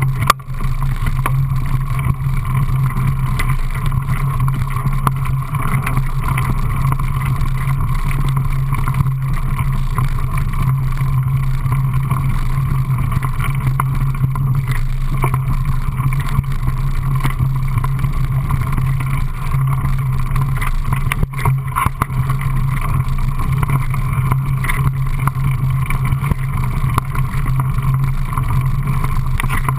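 Steady wind buffeting and tyre rumble on a mountain bike's handlebar-mounted camera riding fast down a gravel singletrack, with occasional knocks as the bike rattles over bumps.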